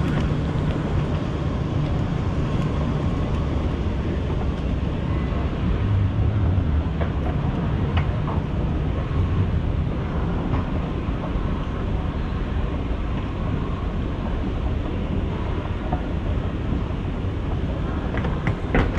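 Escalator running: a steady low mechanical rumble with a few faint clicks.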